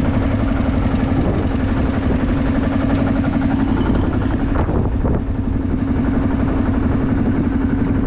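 Lanz Bulldog D2416 single-cylinder two-stroke diesel tractor engine running steadily under ploughing load, with an even, rapid pulse.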